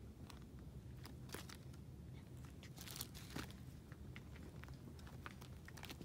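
Faint, irregular crackles of dry fallen leaves, with a small cluster about three seconds in, over a low steady background rumble.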